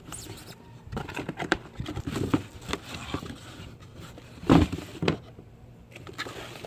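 A packaging box being handled and worked open by hand: scattered scrapes, rustles and small knocks, with one louder knock about four and a half seconds in.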